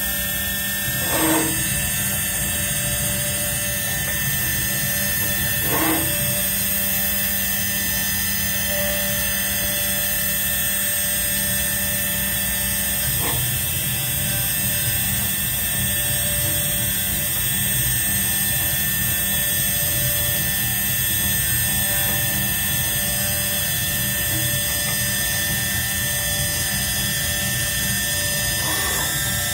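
CNC engraving machine running steadily, a constant mix of machine tones from its motors, with a few short louder sounds: about a second in, around six seconds, around thirteen seconds and near the end.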